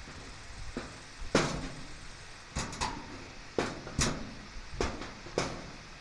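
Garage door extension spring hook and steel hanger hardware knocking and clicking as they are worked by hand: about eight sharp knocks at irregular spacing, the loudest about a second and a half in and about four seconds in.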